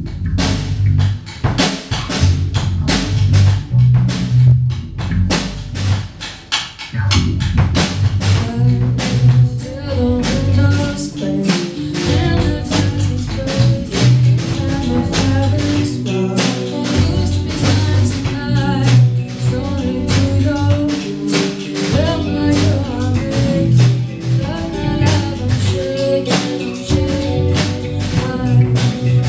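Live rock band playing: drum kit, electric bass and electric guitar, with a lead vocal coming in partway through.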